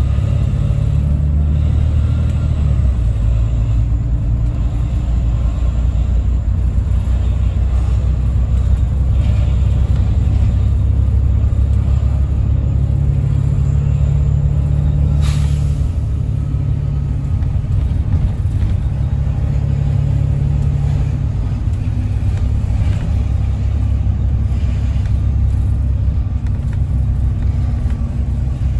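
Double-decker bus's diesel engine and running gear rumbling steadily from inside the bus as it drives, the engine note shifting a few times as it speeds up and eases off. A brief sharp noise comes about halfway through.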